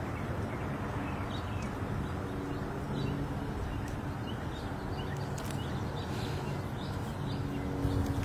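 Outdoor street ambience: a steady low rumble and hum, with small birds chirping briefly now and then.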